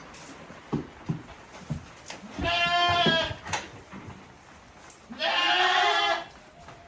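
A goat bleating twice, each a long wavering call of about a second. A few short knocks come before the first call.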